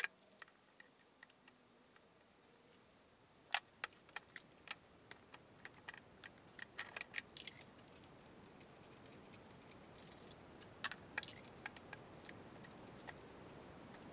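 Faint, scattered clicks and light knocks of spark plug leads and hand tools being handled on a car engine as the spark plugs are taken out, with a quicker run of clicks around the middle.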